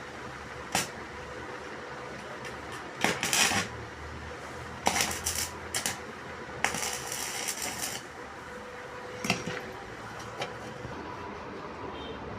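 Metal pieces clattering and scraping in several irregular bursts and single knocks, over a steady faint hum.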